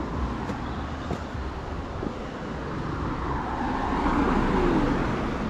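Road traffic hum with a car passing close by, growing louder toward about four to five seconds in and dropping in pitch as it goes by.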